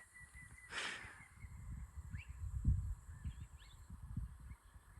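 Irregular low rumble of wind buffeting the microphone, with a brief rustle about a second in and a few faint, short bird calls.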